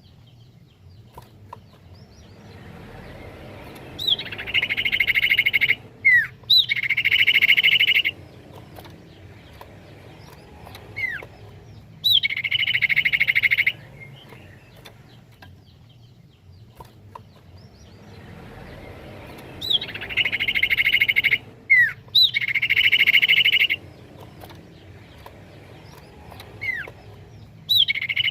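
Common iora (cipoh) calling in a repeating lure recording: short sliding whistles followed by long, dense trills of one to two seconds, the same sequence recurring every sixteen seconds or so.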